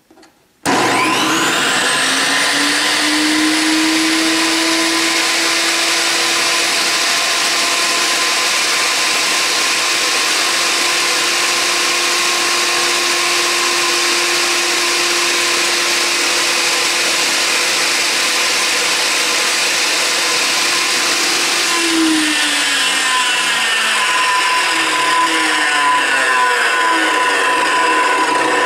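Chicago Electric 10-inch, 15-amp table saw switched on for its first test run, running free with no wood. The motor and blade spin up with a rising whine in about two seconds and then run loud and steady. About 22 seconds in, its tones begin to slide downward.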